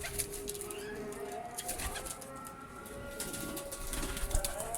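Several pigeons cooing, long held calls overlapping one another, with scattered clicks and rustling.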